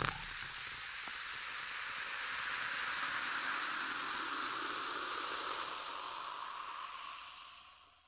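Carbonated soda fizzing after being poured: a steady high hiss of bursting bubbles that swells slightly and then fades away near the end.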